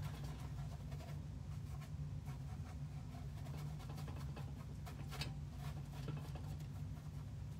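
Paintbrush strokes on canvas: faint, scratchy brushing and dabbing, with one slightly stronger stroke about five seconds in, over a steady low hum.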